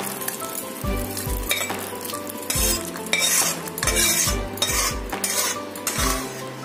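Thin curry broth with potato and vegetable-stem pieces poured from a kadai into a steel pot: liquid splashing in several surges, with metal knocking and scraping on the rim. Background music with a steady beat plays underneath.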